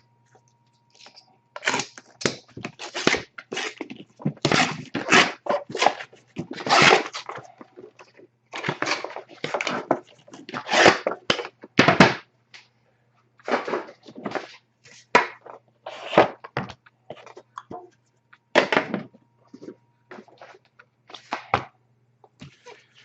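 A sealed trading-card tin and its wrapped box being opened by hand: irregular bursts of rustling, crinkling and tearing packaging, with a few quiet pauses.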